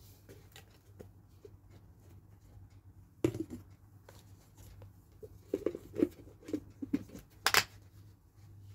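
Kitchen handling noises as ingredients and utensils are moved around a steel mixing bowl: a sharp knock, then a run of light knocks and clatter, and a brief sharp rustle near the end. A low steady hum runs underneath.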